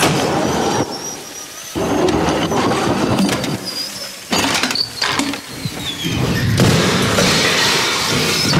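Loud grinding, rasping noise from an old wooden attic wheel mechanism, coming in several stretches, with cracking as the ceiling plaster around the chandelier mounting begins to split.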